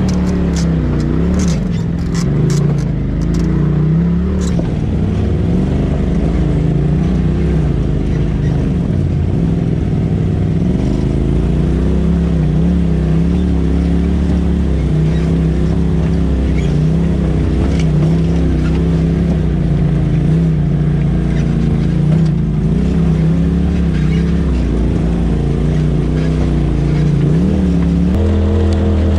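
Side-by-side UTV engine running at low revs on a slow trail climb, its pitch rising and falling with the throttle. A flurry of sharp clicks and knocks comes in the first few seconds.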